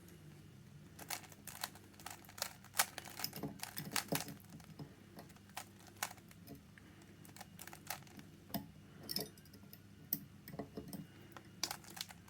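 Irregular quick clicks and clacks from a Rubik's cube being turned one-handed, mixed with small clicks from a dimple pick and tension wrench working a Burg Wachter dimple lock.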